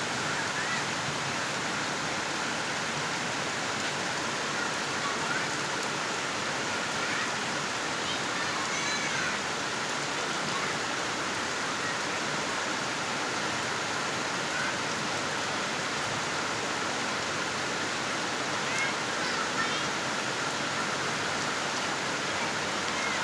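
Steady rain falling, a continuous even hiss, with a few faint short high-pitched sounds here and there in the background.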